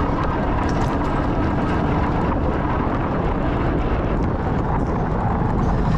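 Steady low rushing noise of riding an e-bike among traffic, mostly wind on the microphone, with small scattered clicks.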